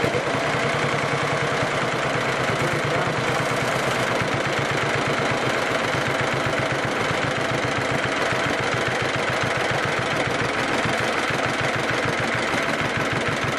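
1949 John Deere BW tractor's two-cylinder engine running steadily with an even pulsing beat, running real good.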